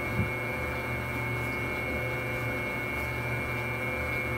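Commercial dough mixer running steadily: an even motor hum with a thin high whine above it, and one soft thump just after the start.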